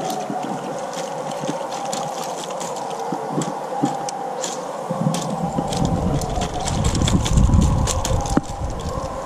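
Wind rumbling on the microphone, strongest from about halfway through, over a steady mid-pitched drone and scattered short clicks.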